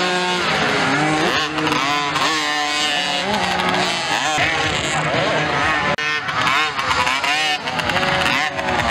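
Small 55cc mini motocross bikes racing by, their engines revving up and down over and over as the riders open and close the throttle.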